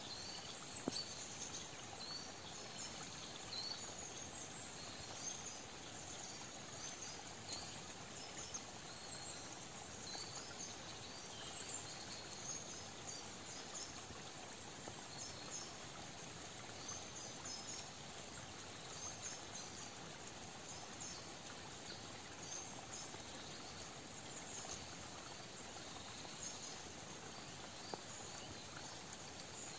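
Outdoor nature ambience: a steady soft hiss with many short, high chirps scattered through it, like insects or small birds calling, and one sharp tick about a second in.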